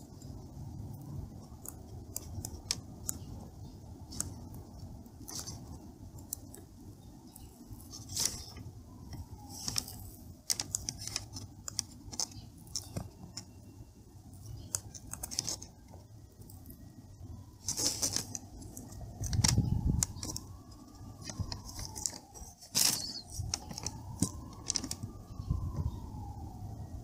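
Small clicks and scrapes of a soldering iron tip working melted plastic on a laptop lid, over a low hum. From about two-thirds of the way in, a siren rises and falls twice behind it.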